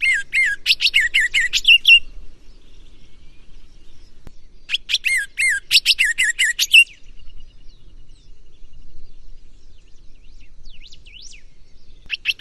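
Green-winged saltator (trinca-ferro) singing its 'gonga' song: two loud, fast whistled phrases of about two seconds each, one at the start and one about five seconds in, with softer scattered notes after, and a third phrase beginning at the very end.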